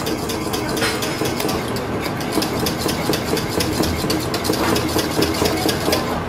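Wire whisk beating pastry cream in a stainless steel saucepan as it cooks, the wires clinking rapidly and irregularly against the pan, over a steady low hum.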